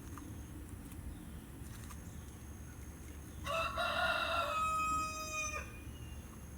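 A rooster crowing once, a call of about two seconds starting about halfway through, over low outdoor background noise.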